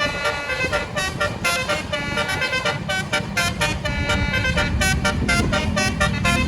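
Indonesian bus basuri telolet musical horn playing a quick tune of short, stepping notes over the low rumble of the bus engine. Near the end a lower held horn tone comes in under the melody.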